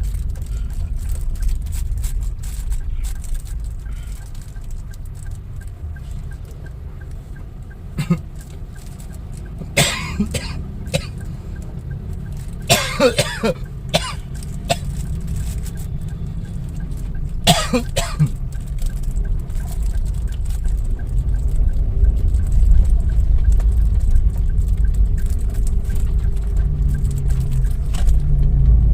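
Car engine and road rumble heard from inside the cabin, low and steady, growing louder over the last third as the car moves off again. A handful of short sharp sounds come partway through.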